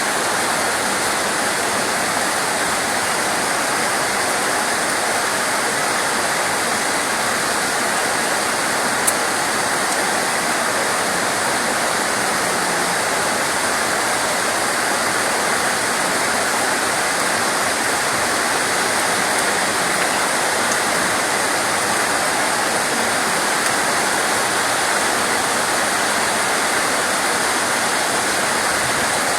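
Steady rain, an even, dense hiss with no rhythm to it, and a single short click about nine seconds in.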